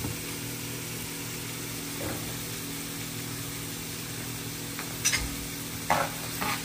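Diced vegetables sizzling gently in a nonstick frying pan over a steady low hum. From about five seconds in, a spatula stirs them, with a few short scrapes against the pan.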